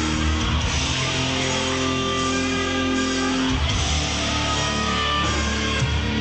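Rock band playing live and loud, guitar-led, with held notes over a heavy bass; the chord changes about three and a half seconds in.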